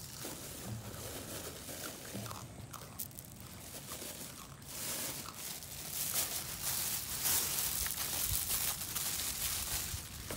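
A plastic bag rustling and crinkling close to the microphone, growing loud about halfway through and running on for several seconds. Earlier there are scattered small clicks and crunches from rhesus macaques picking up and eating roasted adlay.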